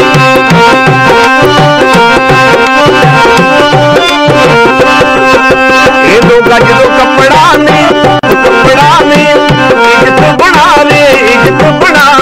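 Harmonium and dholki playing a Punjabi folk song: the harmonium holds the melody over a steady dholki beat. A singer's wavering voice joins in about halfway through.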